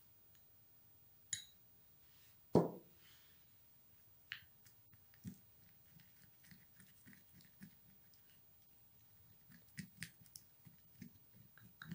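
Plastic spoon scraping a thick face-mask paste from one small glass bowl into another and then stirring it, with light clicks against the glass. A single dull knock comes about two and a half seconds in, and from about five seconds on there are soft irregular ticks as the paste is stirred.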